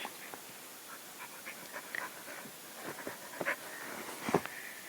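A dog panting and breathing quietly, with soft scattered clicks and two brief louder puffs about three and a half and four seconds in.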